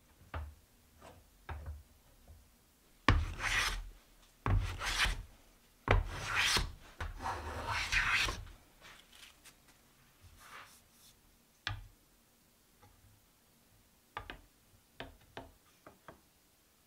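Hand plane shaving cherry wood in four long push strokes, one after another, between about three and eight and a half seconds in. Short knocks of wood and tools handled on the bench come before and after.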